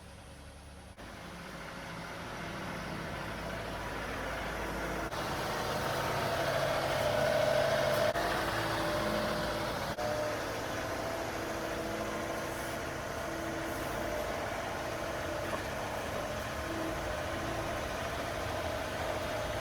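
Tractor engine running as the tractor is manoeuvred into position. It grows louder over the first several seconds, then runs steadily.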